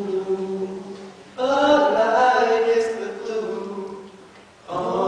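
All-male a cappella quartet singing held chords without words; each chord fades away, and new chords come in about a second and a half in and again near the end.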